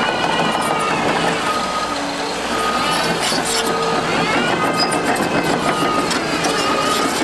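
Liebherr R930 excavator working, its engine and hydraulics running loud and steady with a whine that rises and falls. A travel alarm beeps about once a second.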